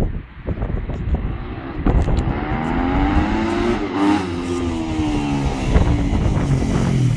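Yamaha YZ250 four-stroke dirt bike with an Akrapovic exhaust riding past: the engine note climbs as it approaches and drops after it passes, about four seconds in.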